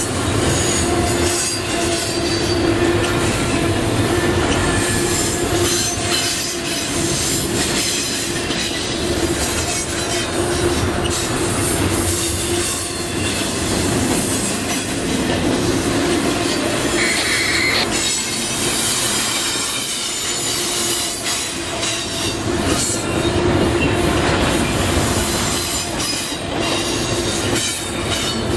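Double-stack intermodal freight cars rolling past close by: steel wheels grinding and squealing on the rails with steady clatter. A brief higher squeal comes a little past halfway.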